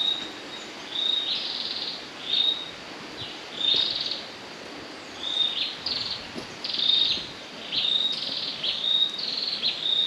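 A bird calling over and over, a short high whistled note followed by a buzzy trill, repeating about once a second.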